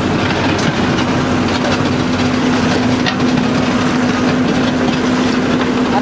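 Backhoe loader's diesel engine running steadily at idle, a constant hum under a loud, even rumble.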